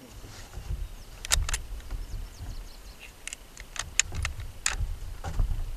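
Light, sharp mechanical clicks and knocks, about ten of them spread irregularly, from handling the scoped bolt-action rifle, over a low rumble on the microphone. No gunshot is heard.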